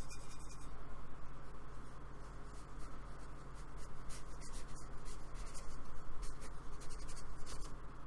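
Paintbrush loaded with acrylic paint scrubbing and dabbing across a black card sketchbook page in short, repeated scratchy strokes.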